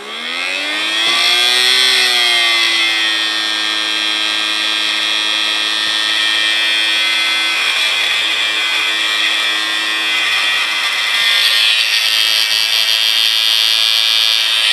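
Small DC motor run from a bench power supply, spinning up with a rising whine as the voltage is turned up over the first couple of seconds, then running at a steady pitch.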